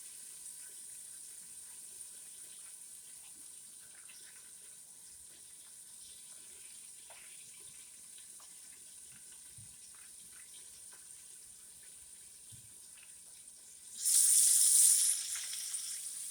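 Chicken pieces frying in hot oil with a faint steady sizzle, then near the end a sudden loud burst of sizzling that lasts about a second and settles back.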